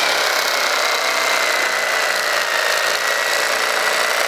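Electric carving knife running, its reciprocating blades sawing a slice off a crusty loaf of bread. A steady motor whine and blade buzz, falling slightly in pitch as the cut goes on.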